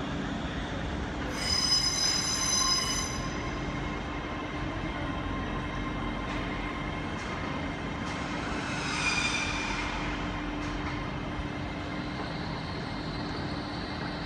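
Wheels of a slow-moving train squealing on the rails, twice: a high squeal of about two seconds starting about a second in, and a shorter, fainter one about nine seconds in. A steady low hum and rumble run underneath.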